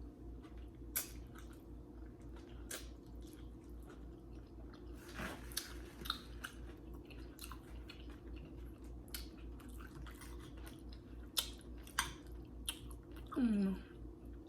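A person chewing food close to the microphone: quiet, wet mouth clicks and smacks at irregular intervals, over a steady low hum.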